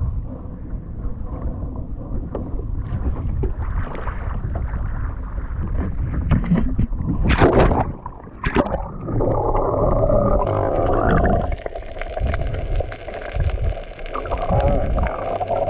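Wind and water noise on a handheld action camera at sea, then splashing about 7 to 9 seconds in as a snorkeller slides off a kayak into the water. After that the camera is underwater: muffled rushing and bubbling.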